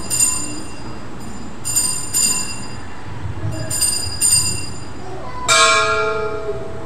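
Altar bells rung at the consecration of the Mass: quick pairs of high, bright rings about every two seconds, then one fuller, lower-pitched bell strike about five and a half seconds in that keeps ringing.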